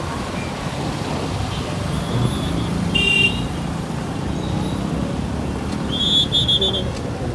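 Road traffic heard from a moving motorcycle: a steady rumble of engines and wind. A short horn toot sounds about three seconds in, and a second horn beeps in quick pulses about six seconds in.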